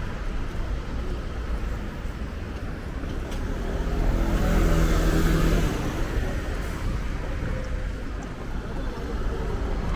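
Street traffic, with one motor vehicle passing close by: its engine hum and tyre noise swell to a peak about four to five seconds in, then fade.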